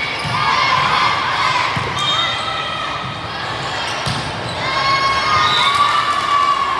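Gym sounds from an indoor youth volleyball match: sneakers squeaking on the court floor, two sharp ball hits about two seconds apart, and voices of players and spectators.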